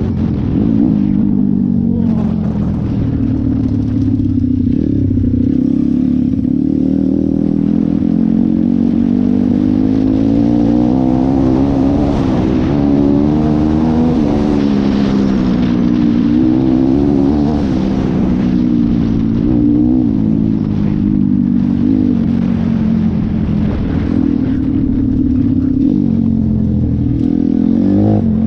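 Dirt bike's YX 150 single-cylinder four-stroke engine running under way, its revs rising and falling with the throttle.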